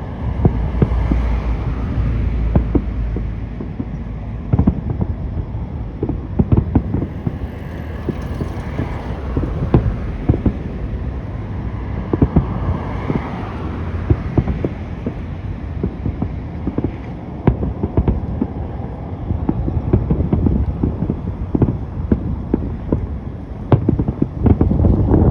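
Fireworks display: many irregular bangs of shells bursting over a steady low rumble.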